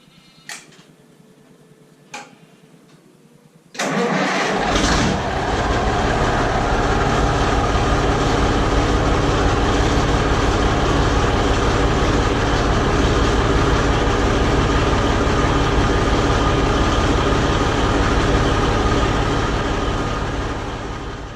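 New Holland B95 backhoe loader's diesel engine starting: two faint clicks, then about four seconds in it cranks and catches, and settles into steady running until it fades out near the end.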